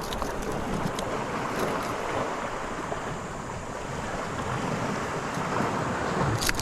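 Steady rushing noise of wind on the microphone and water lapping around a small boat, with a brief knock near the end.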